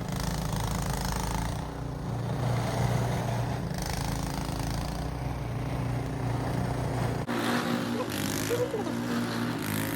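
Small gasoline snowblower engine running steadily. About seven seconds in, the sound changes abruptly as the deep low rumble drops away.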